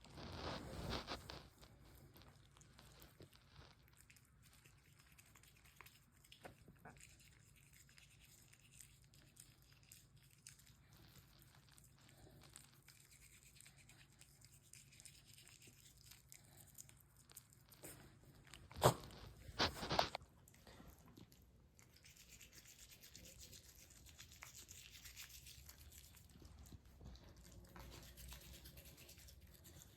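A toothbrush scrubbing a dog's teeth: faint, scratchy brushing with scattered small clicks, a louder rustle in the first second or so, and two sharp knocks about two-thirds of the way through.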